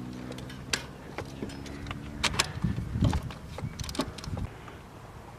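Scattered metallic clicks and clinks of hand tools working a spark plug into the engine's cylinder head, over a low steady hum.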